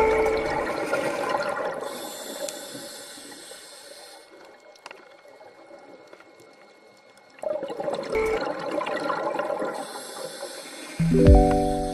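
Rushing, bubbling water sound that fades away over several seconds, then starts again suddenly about seven seconds in. A higher hiss comes and goes above it twice.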